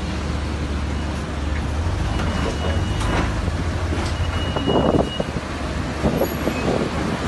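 A large engine running with a steady low rumble, with irregular clattering about four to five seconds in and again near the end, and two brief high steady tones in the middle.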